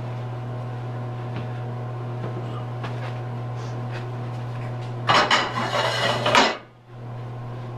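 A steady low hum with a few faint clicks, then about five seconds in a loud clatter of metal cookware at the stove lasting about a second and a half, cutting off abruptly.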